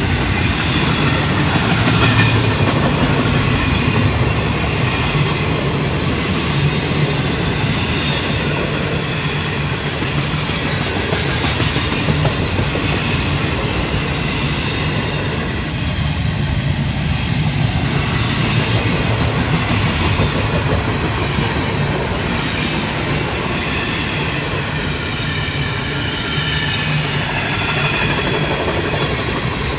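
Double-stack intermodal well cars of a Florida East Coast Railway freight train rolling steadily past, their wheels clicking over the rail joints.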